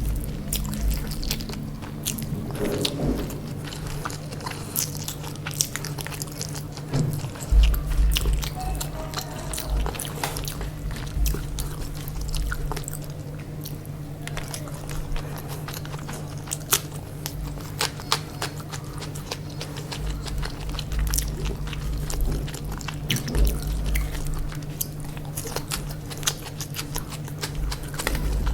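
Close-miked chewing and biting while eating chicken biryani, with many small wet mouth clicks over a steady low hum.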